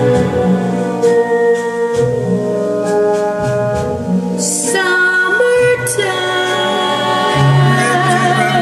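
Orchestral music with a singing voice, played back through a stereo system into small Rogers LS3/5 bookshelf loudspeakers. The singer's wavering notes come in about six seconds in.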